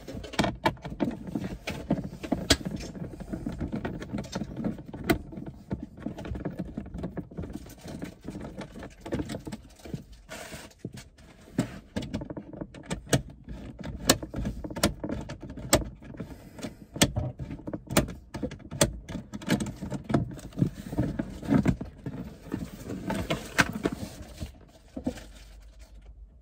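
A small screwdriver working Torx screws out of a plastic footwell trim panel: irregular clicks, scrapes and small metal clinks with close handling rumble, dying down near the end.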